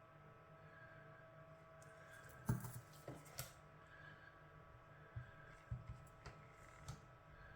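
Faint steady electrical hum, with a few small clicks and taps of soldering tools against the circuit board and bench, the sharpest about two and a half seconds in.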